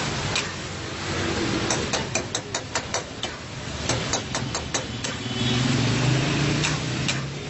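Long metal ladle clinking and scraping against a steel karahi in quick runs of taps while chicken karahi sizzles over a high flame, under a steady low hum.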